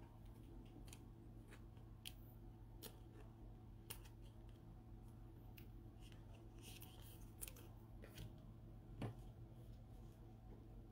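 Faint, scattered clicks and light rustling of football trading cards being handled by hands in disposable gloves, over a low steady hum; the sharpest click comes about nine seconds in.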